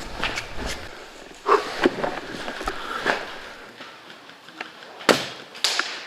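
A few sharp clacks and rustles from an L96-type bolt-action airsoft sniper rifle being handled and fired. The loudest, about five seconds in, fits its single shot.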